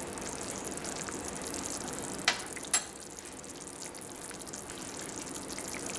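Pot of water bubbling at a rolling boil on a stovetop, a steady hiss. Two short sharp clicks come about halfway through.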